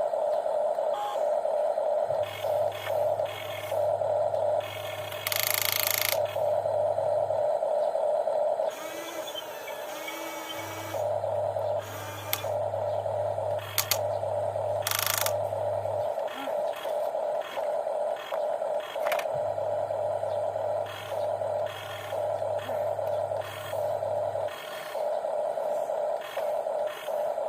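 Electric gear motors of radio-controlled toy excavators whining as they work, a second lower motor hum cutting in and out every few seconds, with scattered clicks and short scraping bursts.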